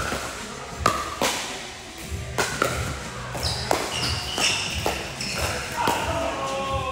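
Pickleball paddles striking a plastic pickleball in a fast doubles rally: a series of sharp pops about every half second to a second. Background music with a steady low beat and voices run underneath in a large echoing hall.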